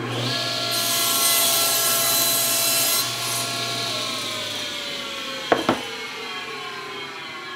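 Table saw cutting a plywood panel, the blade's whine joined by a loud hiss of cutting for the first few seconds. The saw is then switched off and the blade and motor wind down, the pitch falling steadily, with two sharp knocks close together partway through.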